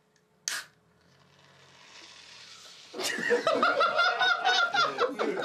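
A beer can cracked open with a short sharp hiss, then a soft fizz as it foams over. About three seconds in, two men burst out laughing.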